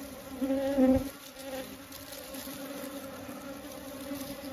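Honeybees buzzing steadily around a hive opened for cutting out honeycomb. The wavering hum swells louder for a moment in the first second.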